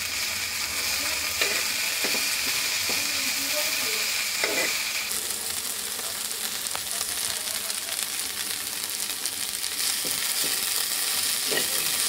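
Chopped okra, partly fried and just salted, sizzling in hot oil in an iron kadai. A steel spatula scrapes and stirs through it every few seconds.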